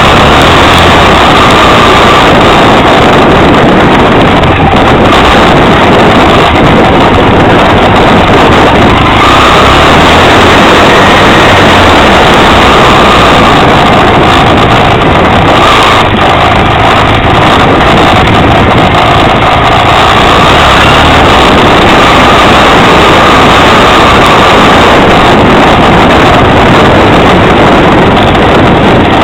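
Yamaha XTZ 750 Super Ténéré parallel-twin engine running steadily under way on a dirt track, heard from on board, mixed with wind on the microphone. The whole is loud and unbroken, its note wavering a little with the throttle.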